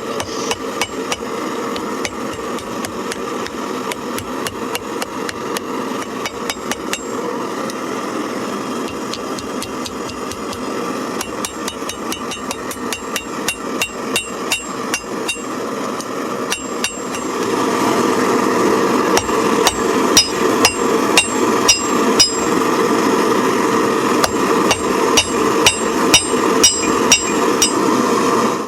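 Hand hammer striking hot round bar stock on an antique anvil in a long run of steady, evenly spaced blows while an S hook is forged. From about the middle on, each blow rings with a bright metallic ping. A steady rushing noise runs underneath and grows louder about two-thirds of the way through.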